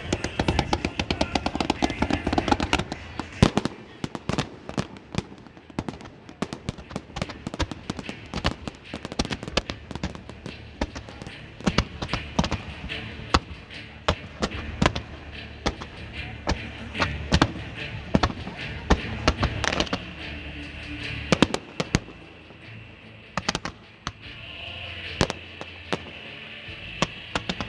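Fireworks going off in quick succession: a dense run of bangs and crackling reports, with music playing underneath.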